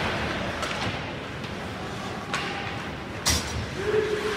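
Ice hockey play: sharp knocks of the puck against sticks and boards, a few spaced apart, the loudest a little over three seconds in, over the open hum of an arena.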